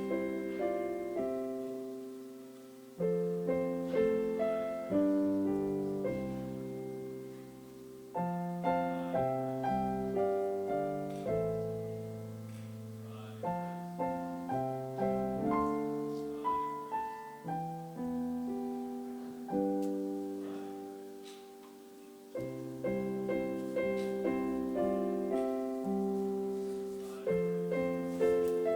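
Solo piano playing a slow, quiet piece: chords and melody notes struck and left to fade, in phrases separated by short pauses.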